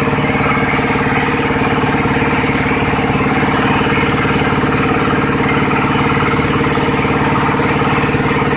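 Small stationary engine running steadily at a constant speed, driving a coconut coir sieving drum through a gearbox.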